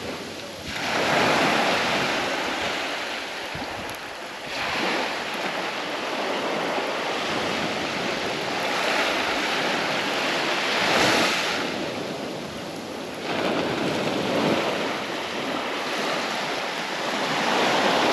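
Waves breaking on the shore, the rush of surf rising and falling in surges about every four seconds.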